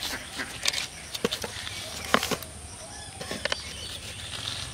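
Scattered sharp clicks and light rustles from a plastic jar and bag being handled while fishing bait is prepared, with faint bird chirps in the background.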